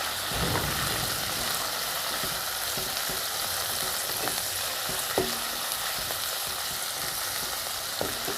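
Small chicken pieces sizzling steadily in hot oil in a pan on high flame as they are stirred, with a few light clicks of the spoon against the pan.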